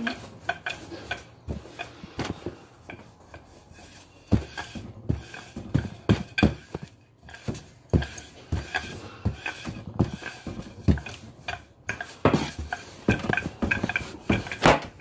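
Wooden rolling pin pushed back and forth over a slab of laminated croissant dough on a pastry board, giving many irregular knocks and thuds as it is rolled out into a thin rectangle.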